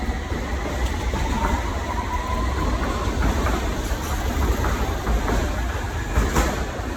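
Steady low rumble and running noise of a moving vehicle, with a faint whine in the first couple of seconds and a sharp click near the end.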